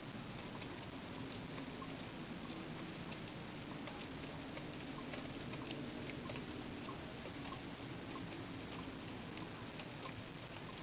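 Hornby Class 06 model diesel shunter running with tank wagons: a faint, steady motor hum with a regular run of small ticks from the wheels on the track.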